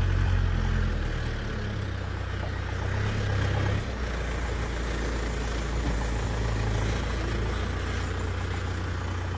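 Vehicle engine running steadily with a low hum, its pitch shifting about four seconds in.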